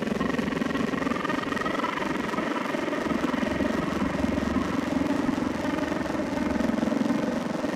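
Steady engine rumble of a motor vehicle running, with a faint rising whine over the first couple of seconds.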